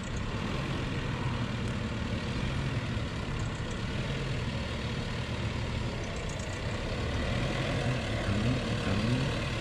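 Mitsubishi Triton pickup's engine running low and steady as the truck crawls over a rutted dirt off-road track, with two short rises in revs near the end.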